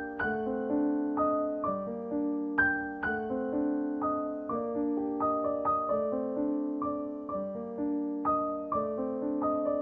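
Background piano music: a slow melody of single notes, each struck and left to fade.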